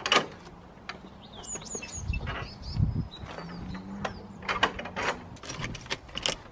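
Metal latch of a wooden field gate clicking and clanking as the gate is opened and pushed through, then the clicks and knocks of a door being handled. A few bird chirps sound in the first couple of seconds.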